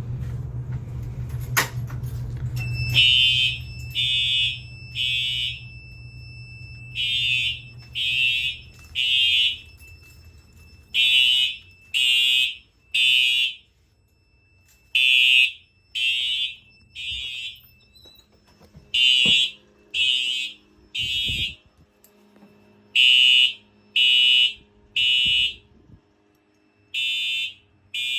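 Fire alarm horns sounding the temporal-3 evacuation pattern: groups of three short blasts a second apart, each group followed by a short pause, over and over. Before it, about a second and a half in, comes a sharp click as the pull station is pulled.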